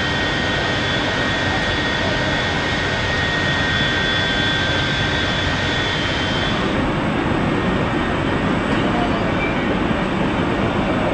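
Steady machinery roar aboard a warship, with thin high whining tones over it. The whine drops out about seven seconds in, leaving a lower, rougher rumble.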